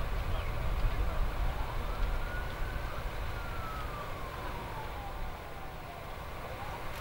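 A siren wailing: one quick rise in pitch, then a long slow fall, with the next rise starting near the end, over a steady low rumble.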